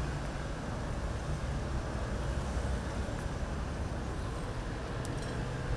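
Steady low rumble of street traffic, with a few faint light clicks about five seconds in.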